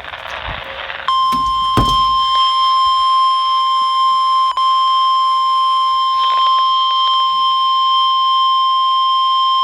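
NOAA Weather Radio warning alarm tone, a single steady 1050 Hz tone that signals a severe thunderstorm warning. It starts about a second in and holds, with a brief dropout about halfway. Before it comes radio static with a couple of clicks.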